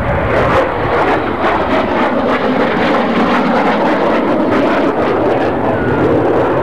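Military jet aircraft in an aerobatic display: a loud, steady rushing engine noise with a slowly sliding pitch and a crackle through the middle.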